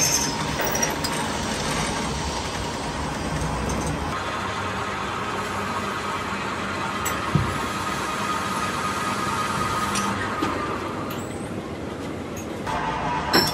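Steady running noise of workshop machinery, an electric motor hum with a faint whine, changing in character about four seconds in and again near the end, with a single sharp knock about seven seconds in.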